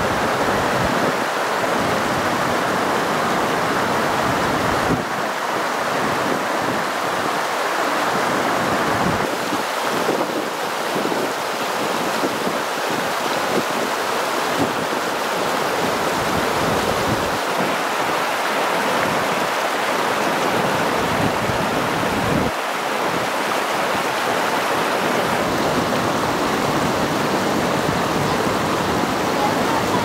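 Water rushing and splashing steadily over the low steps of a fish ladder, a continuous loud rush that shifts slightly in tone a few times.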